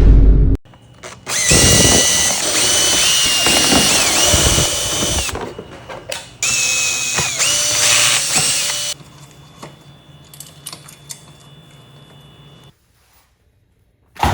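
Power drill running in two bursts of a few seconds each, its motor whine shifting in pitch as it loads up and eases off. Faint clicks of handling follow.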